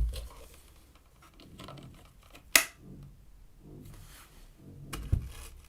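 Plastic handling noises of a vacuum cleaner attachment being fitted, with one sharp click about two and a half seconds in and low thumps at the start and near the end; the vacuum motor is not running.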